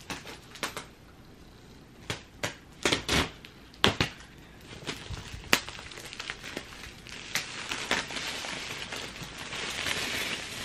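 Plastic shrink-wrap on a laptop box crackling as it is peeled off: scattered sharp crackles at first, then a denser crinkling that builds near the end.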